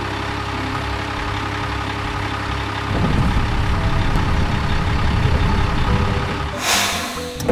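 Heavy vehicle engine running steadily, then louder and rougher from about three seconds in, as if working under load. There is a short hiss near the end.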